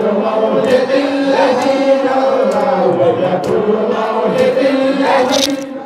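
A group of men chanting devotional verses for the Prophet's birthday (Mawlid), a lead voice on a microphone with several voices chanting along.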